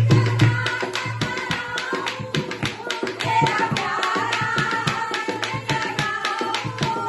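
Devotional bhajan music: a dholak playing a fast, steady rhythm under a wavering sung melody.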